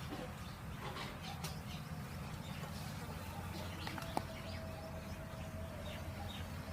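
Small birds chirping in the background over a steady low hum. A single held, level whistle-like tone starts about four seconds in and lasts about two seconds.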